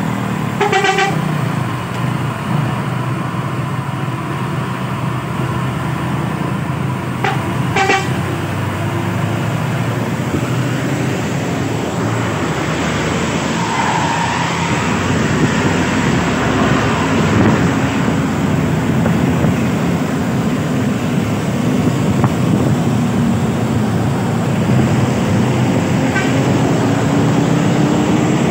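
Heavy road traffic with a big coach's engine running close by, broken by a short horn toot about a second in and two more about seven seconds in. Over the second half an engine note climbs slowly in pitch as the bus gathers speed.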